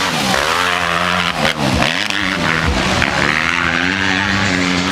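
Motocross dirt bike engine revving as it passes close by, its pitch dropping sharply at the start, dipping and climbing again just under two seconds in, then holding steadier.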